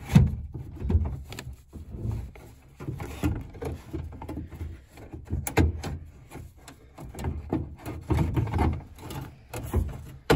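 Irregular knocks, clunks and scrapes of the sliding-door latch/closer assembly being handled and worked into position inside the sliding door's cavity, knocking against the door's sheet metal and plastic parts.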